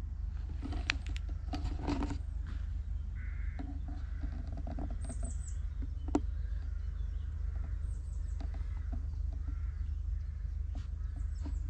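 Wild birds calling in woodland: a few short high falling chirps and a lower call, over a steady low rumble. A scatter of light clicks and knocks, thickest around one to two seconds in, with one sharp knock about six seconds in.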